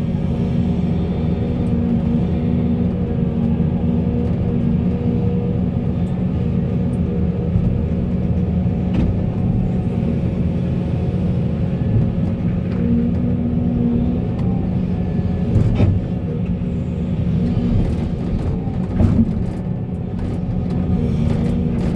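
Volvo excavator's diesel engine running steadily under load while it works, with a couple of brief knocks about sixteen and nineteen seconds in.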